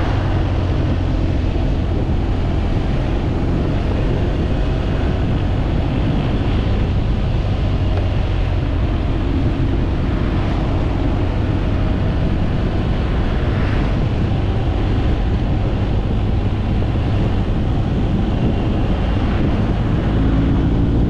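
Motorcycle engine running steadily while riding, under heavy wind rush on the microphone.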